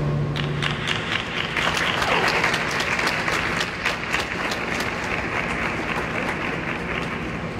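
Audience applauding, starting about half a second in as the last held note of the skating music dies away; the clapping swells over the next couple of seconds, then slowly tapers off.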